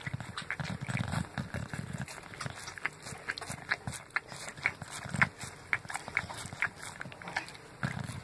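English bulldog chewing and licking a salmon skin: irregular wet smacks and clicks of its mouth, several a second.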